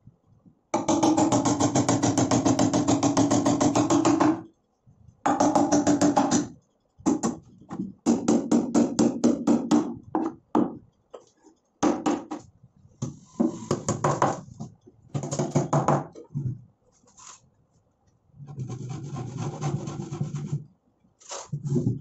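Rapid back-and-forth scraping on a plywood drawer, a hand tool or abrasive worked along the wood with the hollow drawer box resonating. A long unbroken bout of about three seconds comes first, then shorter bouts with gaps between.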